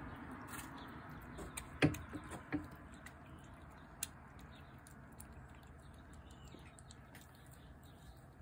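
Cat eating wet food from a plate, with many small wet chewing clicks. A few louder knocks come about two seconds in, and one more a couple of seconds later.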